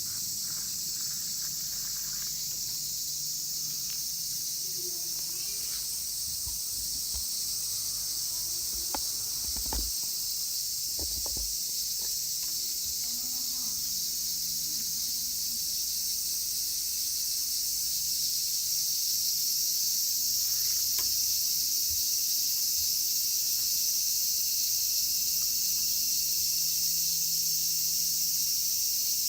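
A chorus of cicadas singing, loud, high-pitched and steady, that swells a little about two-thirds of the way through. A few soft knocks of handling come near the middle.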